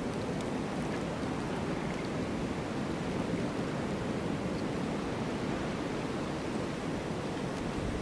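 Strong blizzard wind blowing steadily, an even rushing noise with no separate gusts standing out.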